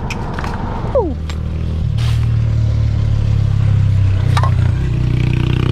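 A motor vehicle's engine idling steadily, with a short falling whine about a second in.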